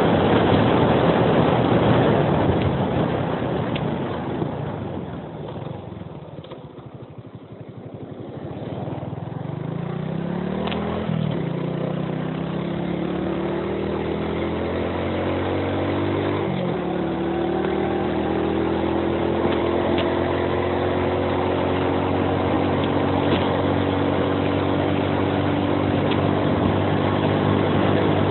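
Wind rush on the microphone at speed, fading as the motorcycle slows, then the Suzuki Axelo 125's single-cylinder four-stroke engine pulling up in pitch under acceleration. The pitch rise breaks twice, about eleven and sixteen seconds in, as the gears change, before the engine settles into a steady, slowly rising run.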